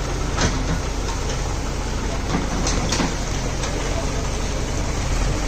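Heavy diesel machinery running steadily, with several sharp knocks and clanks over the engine.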